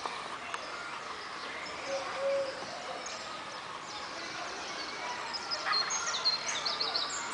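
Birds chirping: scattered short high chirps, with a quick run of falling chirps about six seconds in, over a steady low background hum.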